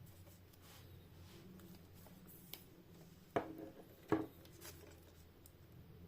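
Faint rustling as the steelbook packaging is handled, with two sharp clicks or taps of the case about three-quarters of a second apart, a little past halfway.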